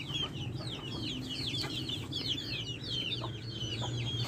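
A flock of young chickens peeping: many short, high, falling chirps, several a second and overlapping, over a steady low hum.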